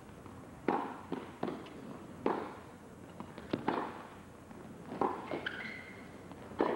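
Tennis rally: a racket strikes the ball and the ball bounces on the court, in sharp separate pops about once a second.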